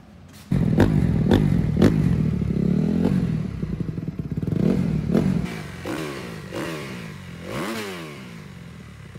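2018 Kawasaki KX250's 250 cc four-stroke single running through an FMF exhaust. It comes in suddenly and loud about half a second in, is blipped up and down a few times, and gets gradually quieter. The freshly built engine is being warmed up.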